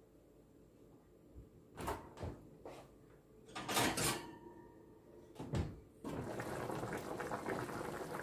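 A few separate knocks and clatters of kitchen handling. About six seconds in, the sound switches to a steady bubbling of chicken soup simmering in an uncovered stainless steel pot while it is stirred with a wooden spoon.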